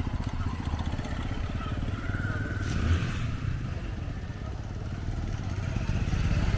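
Small motorcycle engines running as several motorcycles ride past close by, with a brief clatter about three seconds in.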